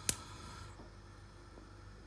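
One sharp click of a gas hob's spark igniter just after the start, the last of a quick run of clicks as the burner catches, then a low steady hum.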